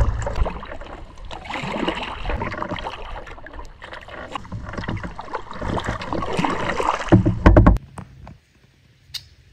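Double-bladed paddle strokes pulling a skin-on-frame kayak through calm water: splashing and dripping that swell and fade with each stroke. A few sharp knocks come about seven seconds in, then the water sound stops suddenly, leaving a much quieter background with one click.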